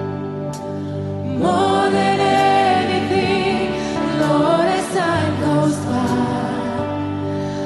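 Live contemporary worship song: a band with electric guitar holds a chord, then a woman's lead voice with backing singers comes in about a second and a half in, singing held, wavering notes.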